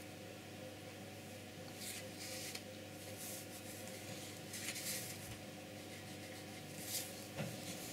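A handful of short, scratchy rubs, spread a second or so apart, as a kolinsky paintbrush works tempera paint on a plastic palette, over a low steady room hum.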